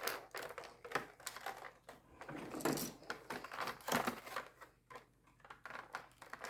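Boxed action figure's plastic and cardboard packaging being handled and worked at by hand: irregular clicks, taps and crinkling.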